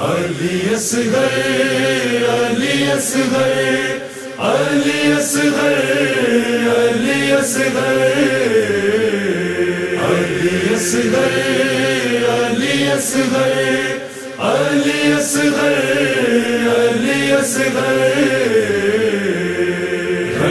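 Chanted vocal intro of a noha: layered voices holding long, wavering notes, with a faint beat about every two seconds. The chant breaks off briefly twice, about four and fourteen seconds in.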